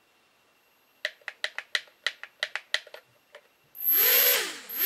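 A quick series of about a dozen short clicks, then the tiny motors of a Hubsan X4 H107L micro quadcopter spinning up to a high whir, the pitch rising, dipping and rising again as the throttle is worked, a test of the just-repaired drone.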